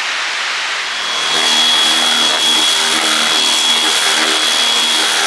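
Rain hissing for about a second, then an electric random orbital sander running steadily on plywood with a high, even whine.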